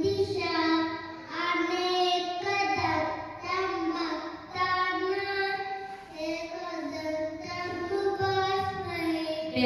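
A young boy chanting a Hindu prayer verse (shloka) in a sing-song voice, holding long notes in phrases with short breaks between them.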